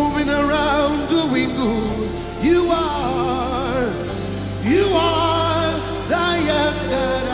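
Live gospel worship music: a singer's voice sliding through long runs over steadily held accompaniment chords.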